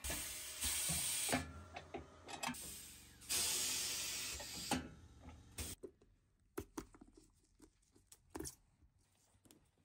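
Air hissing in two long bursts, with knocks, from a pneumatic sole press clamping a lug sole onto a boot; then scattered small clicks and scrapes of a knife trimming the sole edge.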